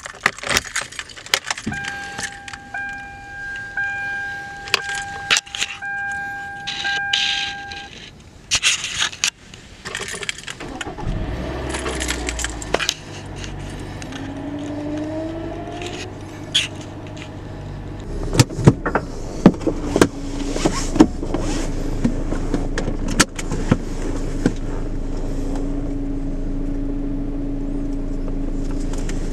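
Car keys jangle and click in the ignition while a steady dashboard chime sounds for about six seconds. The engine then starts about eleven seconds in and settles into a steady idle, with scattered clicks and knocks over it.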